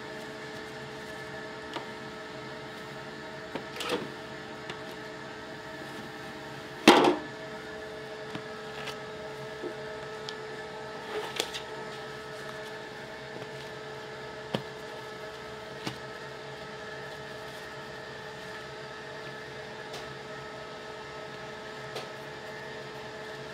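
Steady machine hum with a few fixed tones, broken by light knocks and handling noises of dough and a plastic tub on a marble counter; the loudest is a single sharp thump about seven seconds in.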